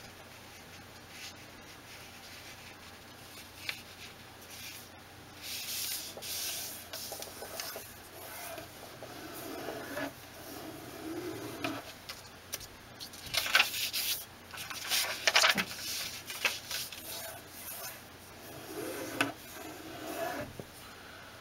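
Fingers rubbing along a fold in a sheet of paper to press a crease. Irregular short rubbing strokes with pauses between, the strongest in the second half.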